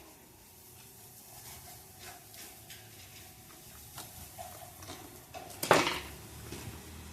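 Hard plastic fan parts being handled and fitted together as the oscillation gearbox of an Arno Silence Force fan is set back in place: scattered light clicks and taps, with one louder clatter a little after halfway.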